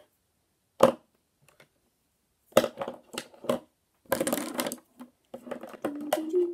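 Plastic-capped felt-tip markers dropped one at a time into a small plastic pen holder: an irregular string of sharp clicks and clatters as they hit the bottom and each other, with a longer rattle a little past the middle.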